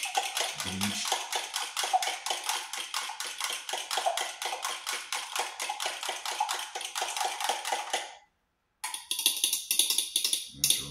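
A fork beating eggs in a plastic cup: quick, even clicks of the fork against the cup, about six a second. They stop for a moment near the end, then start again.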